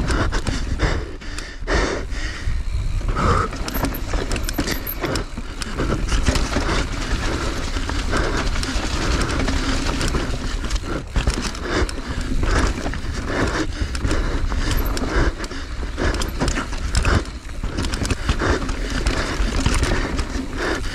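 Mountain bike clattering down a rough trail at race speed: frequent sharp knocks and rattles from the bike over a steady rush of noise.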